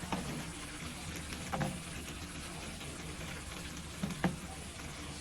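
Food sizzling in a kawali, with a few sharp knocks of a stirring utensil against the pan.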